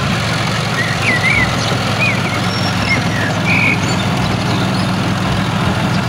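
A heavy diesel engine runs steadily at idle with a low, even hum. Birds chirp several times about one to four seconds in.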